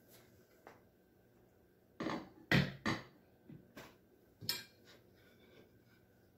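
Slow cooker's glass lid lifted off and set down: a few sharp knocks and clatters about two to three seconds in, then a few lighter clicks as a spoon and china plate are handled.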